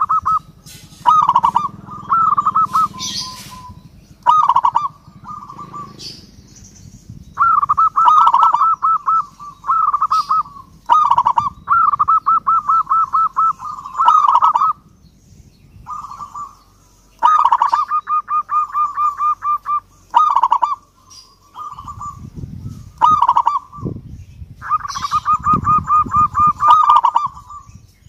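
Zebra dove (perkutut) cooing: a dozen or so rapid, trilled coo phrases, each a second to a few seconds long, with short pauses between.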